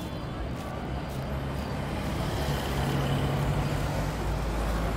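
Steady rumble and hiss of a motor vehicle or road traffic, growing slightly louder through the middle.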